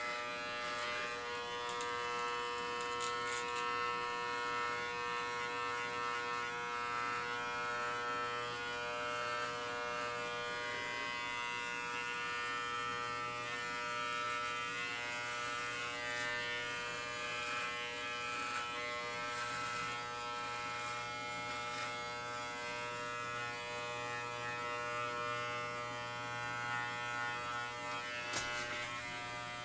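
Cheap electric dog clippers running with a steady buzz while trimming chest and belly hair.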